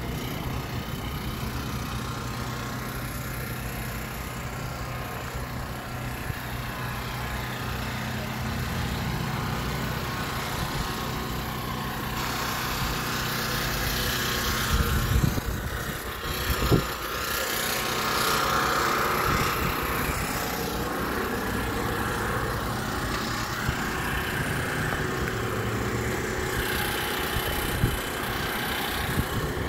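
Motor vehicle engines and road traffic: a steady engine hum throughout, with a passing vehicle growing louder and fading in the middle, and a couple of short knocks about halfway through.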